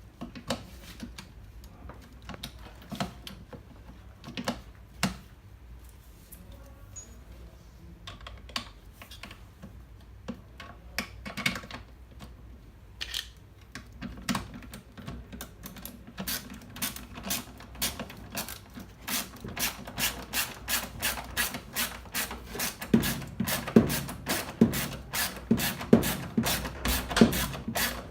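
Hand-tool clicks and knocks on the washing machine's spin motor and its mounting while the motor is refitted. There are scattered single clicks at first, then about halfway through an even run of sharp clicks, about three or four a second, which grows louder.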